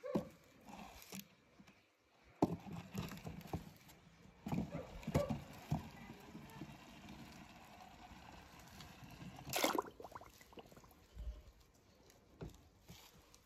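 Small toy trucks clattering as they roll over a toy ramp: scattered light clicks and knocks, with one louder, noisier burst about ten seconds in.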